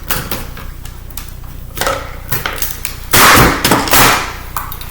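Metal cover of a laptop CD drive being pried at with a tool. A few sharp metal clicks are followed by two loud, harsh bursts of metal noise a little past the middle as the stuck corner is worked loose.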